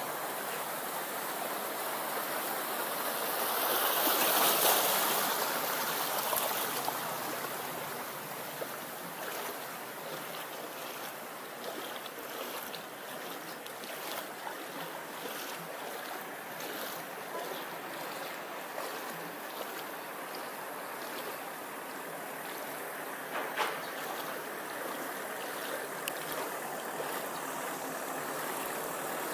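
Steady rushing and sloshing of knee-deep floodwater, swelling louder a few seconds in.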